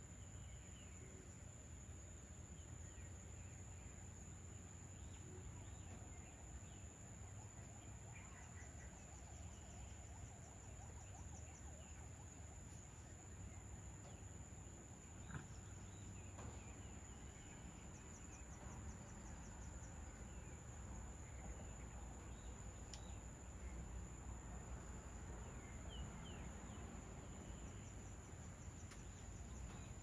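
Faint outdoor ambience: a steady high-pitched insect drone with scattered faint bird chirps and a low background rumble. Short runs of rapid ticking come in twice, about a third and about two thirds of the way through.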